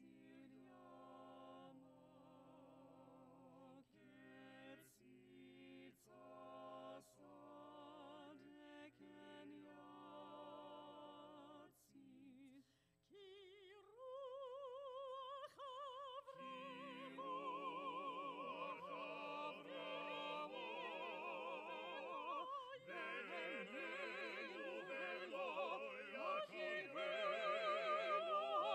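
A small mixed vocal ensemble of two women and two men singing a cappella with vibrato. The first half comes in short phrases with brief breaks. About halfway through, a single voice carries a held line, then the other voices join and the singing grows fuller and louder toward the end.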